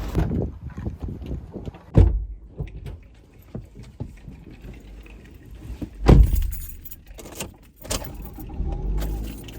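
Three heavy thumps, about two and then four seconds apart, with jangling, clicking and rattling between them over a low rumble.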